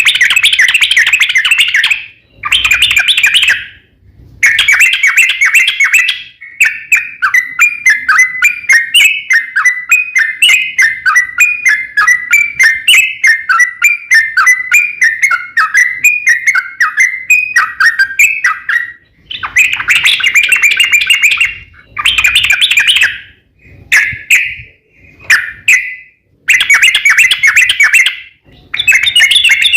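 Yellow-vented bulbul (trucukan) singing: short bursts of bubbly chattering phrases, with one long unbroken rolling warble from about seven to nineteen seconds in.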